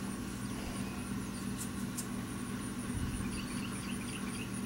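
Outdoor air-conditioning condenser unit running: a steady hum from the compressor and condenser fan.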